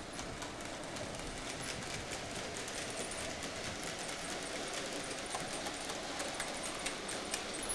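Model Hymek diesel locomotive running along the layout with a rake of mineral wagons: a faint steady motor hum, with light clicks of wheels on track that come quicker and louder toward the end as the train nears.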